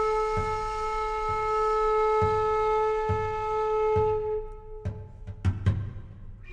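Background music: a flute holding one long note over a slow, steady drum beat. The flute note fades out about four and a half seconds in, leaving a few drum strikes.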